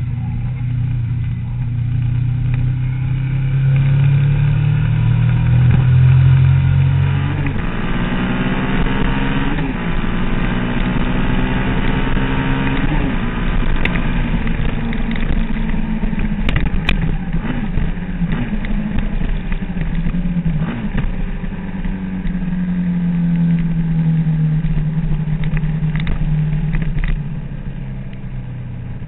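Sport motorcycle engine at track speed, heard from an onboard camera. The engine note holds steady for the first several seconds, then climbs and drops again and again as the bike accelerates through the gears and shifts, and settles into a steadier note near the end.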